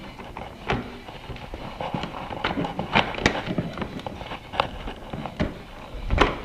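Irregular clicks and knocks from hands and tools handling motorcycle parts, with a few sharper knocks about three seconds in and the loudest one near the end.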